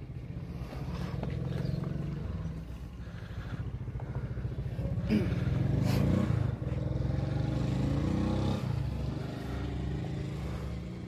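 Motor vehicle engines running on the road, with one vehicle's engine note rising and falling in pitch as it goes past between about five and nine seconds in.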